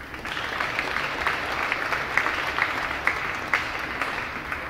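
Audience applauding: a dense patter of hand claps with a few sharper single claps standing out, thinning out near the end.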